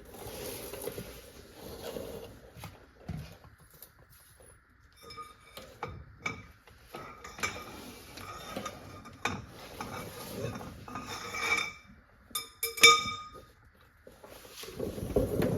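Metal hand tools, a socket and wrench, being handled under the truck: scattered metallic clinks and knocks, some ringing briefly, the loudest about 13 seconds in.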